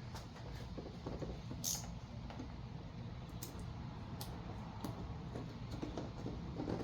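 Scattered light clicks and ticks from hands working vinyl wrap film over a car panel, over a low steady hum.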